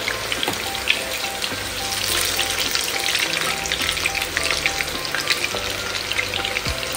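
Chicken pieces deep-frying in hot oil, sizzling and crackling steadily, stirred through with a slotted spoon. Quiet background music runs underneath.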